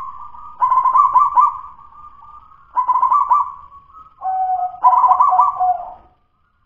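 Zebra dove (perkutut) cooing in three trilled phrases of rapid notes, a couple of seconds apart. Its song is still the rough, broken 'dudut-nutut' of an unfinished local bird, not yet flowing, lingering and full-voiced.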